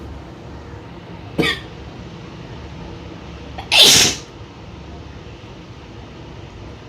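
A woman sneezing: a short, sharp burst about a second and a half in, then a loud, full sneeze about four seconds in.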